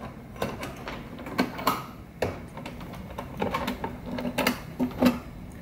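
Metal clasps of a painted metal carrying case being worked open by hand: a series of irregular clicks and knocks, bunched into quick clusters in the second half.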